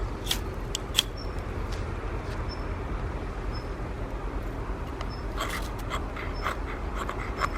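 Wood fire crackling, with scattered sharp pops and a quick run of pops near the end.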